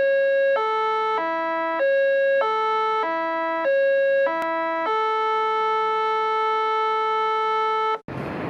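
Simple electronic jingle: a run of short synthesized notes, each just over half a second, stepping up and down in pitch, then one long held note that cuts off suddenly near the end.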